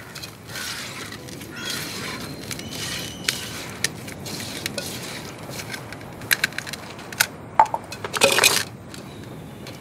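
Hand squeezing and rubbing grated coconut in a clay pot, a crunchy rustle. From about six seconds in, clay pots and a clay cup clink and knock as they are handled, with a louder hollow clatter near the end.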